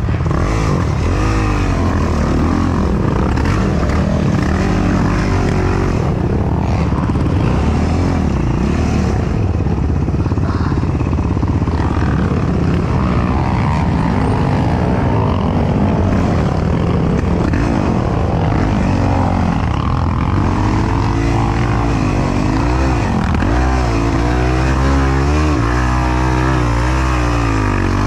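Yamaha YFZ450R sport quad's single-cylinder four-stroke engine at race pace, its pitch rising and falling over and over as the throttle is worked.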